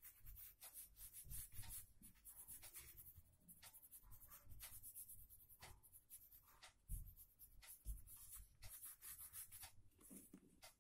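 Graphite pencil shading on paper: faint, short, quick rubbing strokes in an irregular run.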